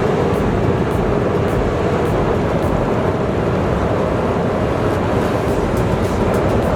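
Heavy earthmoving machinery running steadily, a dense unbroken engine noise, with faint regular ticks about twice a second.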